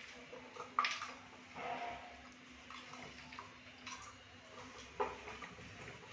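A few sharp clicks and taps, the loudest about a second in and another near five seconds, with softer short clatters between.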